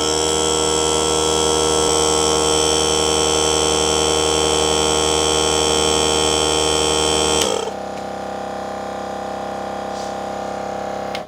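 Several air compressors running at once, a Ridgid electric compressor and a small Harbor Freight 12-volt inflator together with a Milwaukee M18 Fuel cordless compressor, in a loud, steady buzzing drone. About seven and a half seconds in, the loudest of them shuts off, leaving a quieter steady hum.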